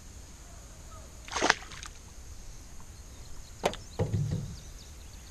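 A small largemouth bass splashing as it is released into the pond, about a second and a half in. Near the end there is a sharp click and then a short low knock.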